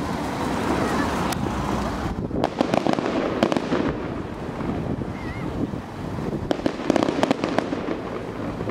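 Fireworks crackling: two quick runs of many sharp pops, about two seconds in and again about six and a half seconds in, over a steady background rumble.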